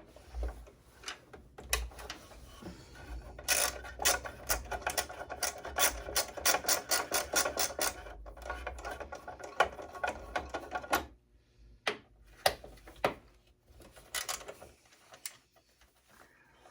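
Rapid clicking and rattling from hand screwdriver work on a desktop computer's metal chassis, with a dense fast run of clicks in the first half. After about eleven seconds it drops to a few scattered knocks.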